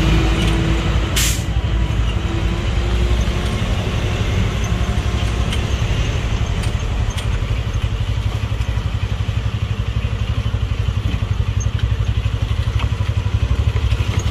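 Motorcycle engine running steadily while riding along a rough dirt road, with a loud low rumble of engine and road, and one short sharp noise about a second in.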